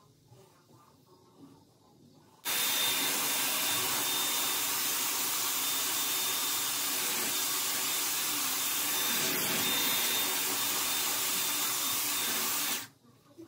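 Dyson Airwrap hot-air styler blowing air through its curling barrel with hair wound on it. It is a loud, steady rush of air with a faint high whine, switched on about two and a half seconds in and off about a second before the end.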